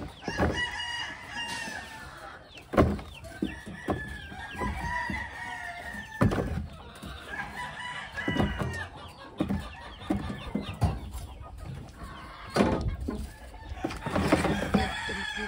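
Chickens in a farmyard crowing and clucking, with repeated pitched calls. Now and then a dull thump as sweet potatoes are dropped into a plastic basin.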